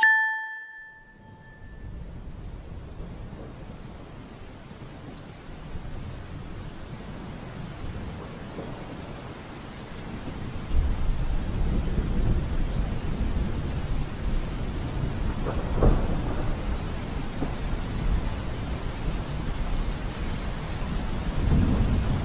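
Rain and thunderstorm ambience: steady rain with low rolls of thunder that swell louder about halfway through and again near the end. It opens with a short ringing tone that dies away within about a second.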